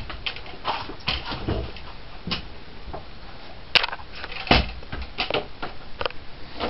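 A person moving about and handling things in a small room: scattered clicks, knocks and rustles, with two louder knocks a little before and after four seconds in.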